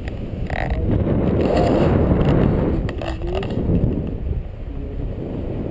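Wind buffeting the camera microphone as the paraglider flies: a low, rumbling rush of air that swells about two seconds in.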